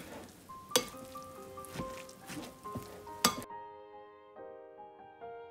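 A spoon stirring and scraping steamed black glutinous rice in a glass bowl, with a few sharp clicks. Soft background music with held notes comes in about half a second in, and the stirring sound cuts off suddenly about three and a half seconds in, leaving only the music.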